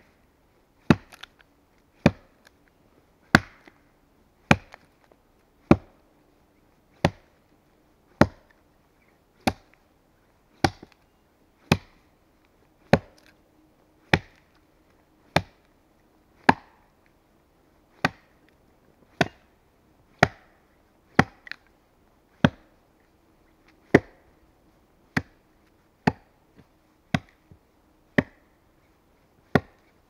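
Custom Viewerwoods axe chopping into a log: sharp, evenly paced blows about once every second and a quarter, biting chips out of the wood.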